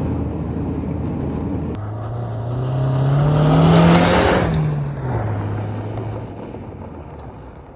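Car engine rising in pitch as it speeds up, loudest about four seconds in, then dropping back and fading away.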